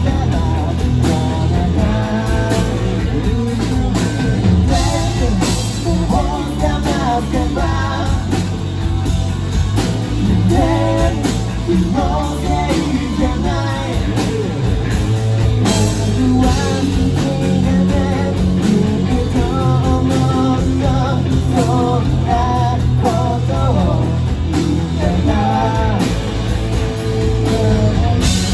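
Live rock band playing: a singer's voice over electric guitars, bass guitar and a Tama drum kit, the full band going steadily.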